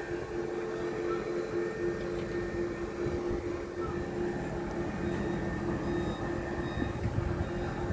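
Heavy construction machinery running steadily: a constant low rumble under a steady mid-pitched whine.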